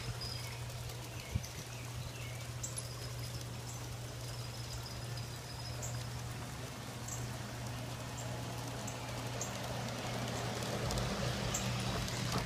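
Water trickling and splashing in a small garden stream, over a steady low hum, with short high ticks now and then; a large-scale model train runs along the outdoor track.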